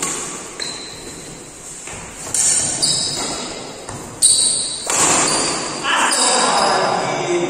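Badminton rally in an echoing hall: about a half-dozen sharp racket-on-shuttlecock hits, the loudest a little past four seconds in, with shoes squeaking briefly on the court floor.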